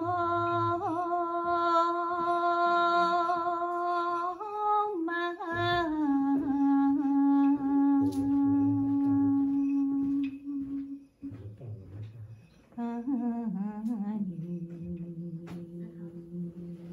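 Background music: a wordless humming voice holding long, slow notes of several seconds each, gliding from one pitch to the next. The notes step lower overall, with a brief quieter gap about two-thirds of the way through.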